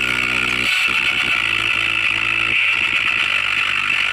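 Woofer driven by a homemade single-transistor TIP35C amplifier, playing bass-heavy music as held low notes that change every second or so. The sound is buzzy, with a steady hiss above it.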